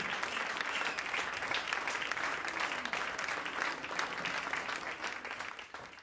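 Large crowd clapping and cheering, a dense steady applause that fades out near the end.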